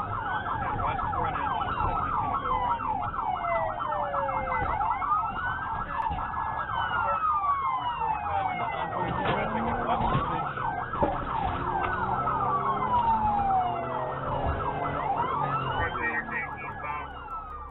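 Police car siren during a pursuit, two siren tones sounding at once: a rapid warbling yelp and a slow wail that rises and falls about every five seconds. Engine and road rumble run underneath.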